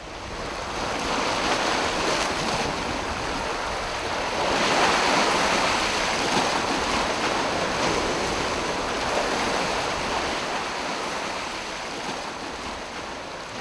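Sea waves washing and foaming over shoreline rocks: a continuous surf wash that builds over the first couple of seconds, is fullest about four to five seconds in, and eases slightly near the end.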